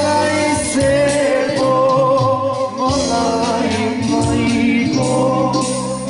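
Macedonian folk song played by a band: a singing voice holds long, wavering notes over the instruments, with percussion keeping a steady beat.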